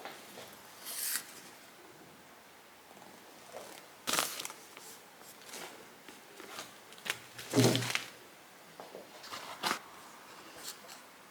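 Indoor handling sounds: a rustle, then several scattered clicks and knocks, the loudest a knock with a low thud about seven and a half seconds in.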